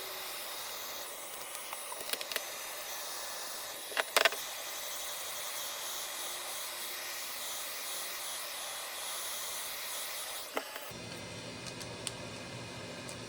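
Hot-air heat gun blowing, a steady rushing hiss, with a few sharp clicks and a louder knock about four seconds in. It is being used to soften the battery adhesive.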